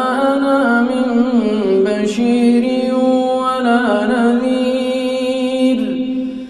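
A man's voice in melodic Quran recitation (tajweed), drawing out long held notes with rising and falling ornaments. Near the end the voice falls in pitch and breaks off for a breath.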